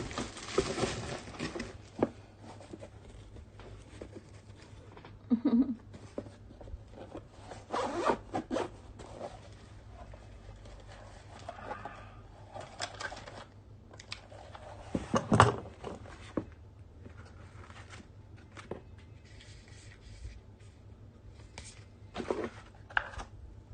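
GoPro Hero 9 packaging being opened and handled: intermittent rustling, scraping and small clicks, with a few louder knocks.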